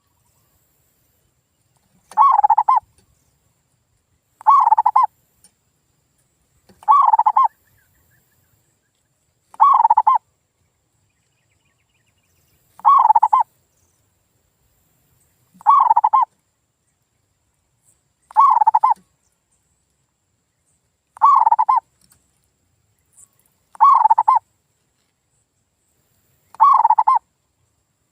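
Male zebra dove (perkutut) cooing, a lure-call recording. A short, bubbling coo phrase is repeated ten times, about every two and a half to three seconds, with silence between phrases.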